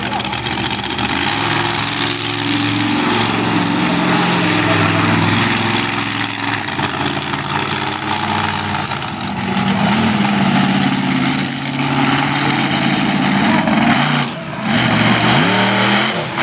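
Monster truck engine running loud, revving up and down as the truck drives. There is a short drop about 14 seconds in, then a sharp rising rev near the end as the truck pitches up onto its rear wheels.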